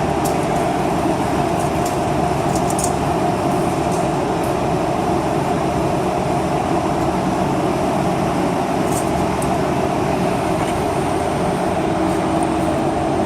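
A steady, unchanging mechanical drone: an even rushing noise with a constant hum, with a few faint clicks over it.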